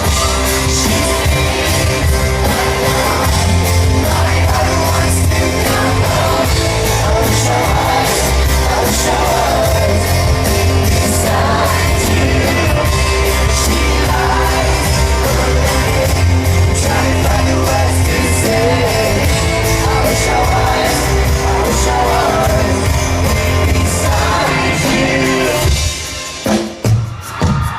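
Live pop-rock band playing with lead singing, loud and echoing in a large concert hall, as heard through a phone's microphone. The music drops away and wavers near the end.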